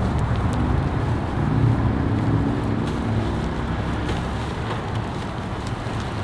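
Car driving on the road: a steady low rumble of engine and road noise.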